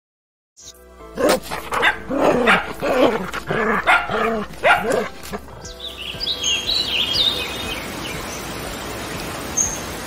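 A quick string of short, pitched animal yelps or barks, starting about a second in and lasting about four seconds. Then high bird chirps over a steady hiss.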